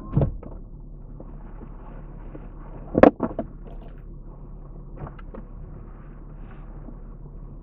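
Steady low hum of a stationary car, heard from inside the cabin, with a sharp thump about three seconds in and a few lighter knocks around it.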